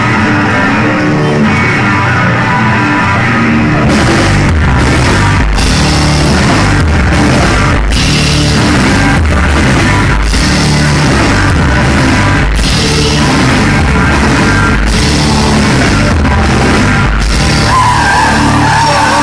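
Live rock band playing loudly, recorded from the audience with overloaded, distorted sound. A guitar riff carries the first few seconds, then the drums and full band come in about four seconds in.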